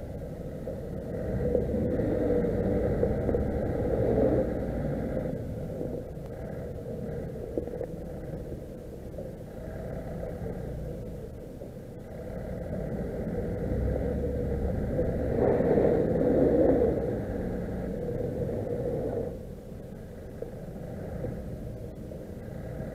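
Vehicle engines running with a low rumble that swells louder twice, for a few seconds each time, as a Scania truck pulls a Skoda Octavia through snow on a kinetic recovery rope.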